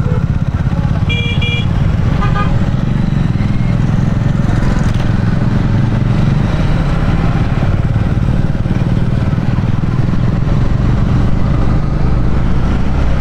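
Yamaha MT-15's single-cylinder engine running steadily at low town speed under the rider. Short vehicle-horn beeps sound about a second in and again about two seconds in.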